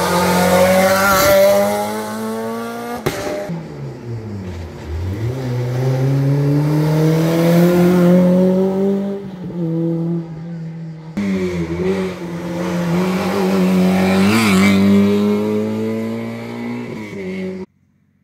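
Rally car engines at high revs on a closed stage: a Renault Clio rally car accelerates out of a hairpin, its engine note climbing, dropping and climbing again through the gears. After a cut, a second run of a car accelerating hard, pitch rising, until the sound cuts off abruptly near the end.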